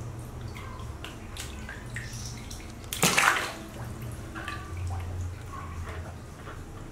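Baby macaque paddling in a plastic basin of water: small splashes and drips, with one loud splash about three seconds in.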